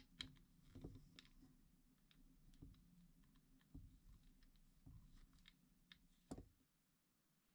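Faint, irregular clicks and light knocks of small hard objects being handled, with a low steady hum underneath that fades out near the end. The sharpest knock comes about six seconds in.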